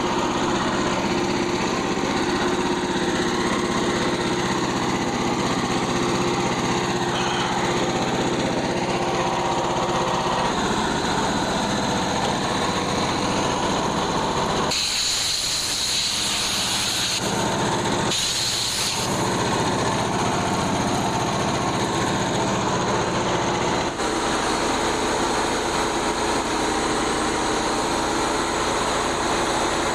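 Frontier OS27 portable band sawmill running steadily under its gas engine, its sound shifting a few times partway through, recorded with distortion.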